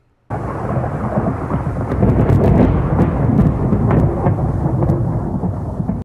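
Thunder rumbling over rain. It starts abruptly about a third of a second in and stays loud, with scattered crackles.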